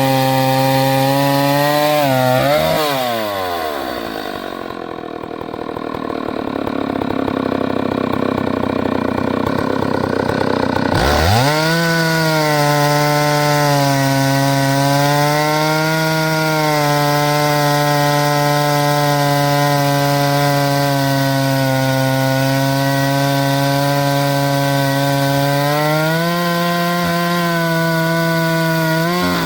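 Chainsaw in an Alaskan chainsaw mill, cutting a log lengthwise into planks. Its engine pitch drops a couple of seconds in and gives way to a rougher, noisier stretch. It revs back up about eleven seconds in and runs steadily, rising slightly near the end.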